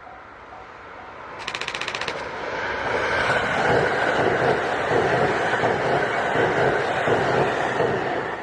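A train passing close by at a level crossing: a loud rush of wheels on rail with a rhythmic clatter, building from about two seconds in, loudest in the middle and easing near the end. Before it arrives, the crossing's warning bell dings at a steady beat, and a short burst of very fast rattling clicks sounds about a second and a half in.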